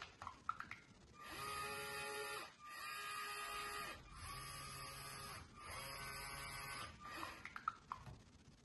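A LEGO robot's electric motors drive two worm gear attachments in four separate runs of about a second each, a steady whine with short pauses between. There are a few light clicks just before the first run and after the last.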